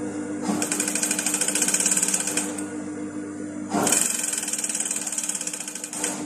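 Juki industrial sewing machine stitching fabric in two short runs of fast, even needle strokes. Its motor hums steadily underneath and between the runs.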